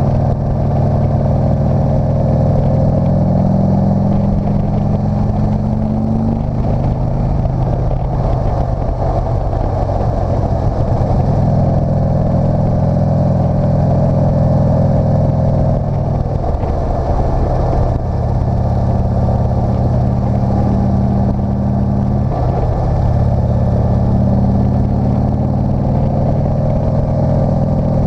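Motorcycle engine running under load on a mountain climb, its note rising and falling several times, over a steady rush of air.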